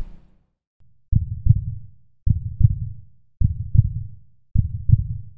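Heartbeat sound effect: slow, low double thumps (lub-dub), four beats a little over a second apart, starting about a second in.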